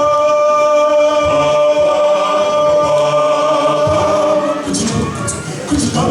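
A cappella male gospel group singing. One voice holds a long, steady high note for about four seconds, then the group moves into shorter, choppier vocal sounds near the end.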